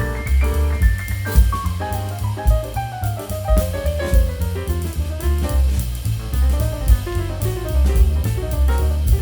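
Background music: jazzy instrumental with a drum kit keeping a steady beat and a melody line running over it.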